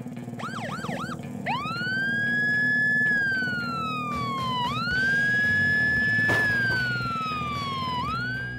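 Police car siren: three quick yelps, then a wail that climbs, holds and slowly falls, twice over, over a low steady rumble. One sharp knock a little past the middle.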